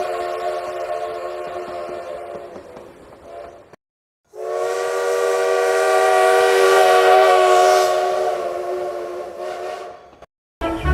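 Train whistle sounding a steady chord of several notes. One blast fades out, and after a short break a second long blast of about six seconds swells and then dies away.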